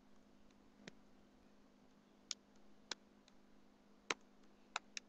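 Computer keyboard keys being typed slowly: about six sharp, irregularly spaced clicks over a faint steady hum.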